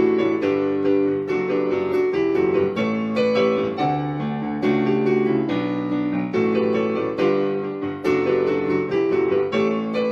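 Electric piano or keyboard playing rhythmic chords in an instrumental passage of a song, without singing.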